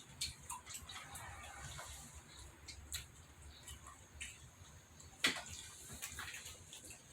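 Close-up eating sounds: wet mouth smacks and chewing on hot fried tilapia, a scattering of sharp clicks, with one sharper click about five seconds in.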